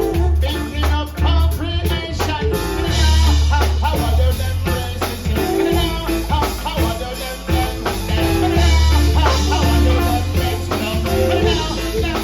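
Live band music with a ska/reggae feel: a heavy bass line and drum kit keeping a steady beat, with other instruments on top and no clear singing.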